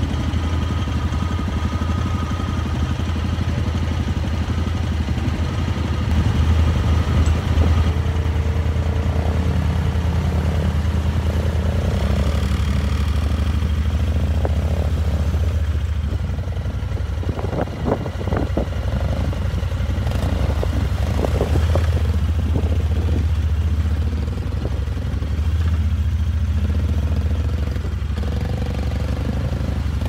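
Suzuki King Quad 750 ATV engine running steadily under load as the quad wades through deep mud and water. A short cluster of knocks comes about halfway through.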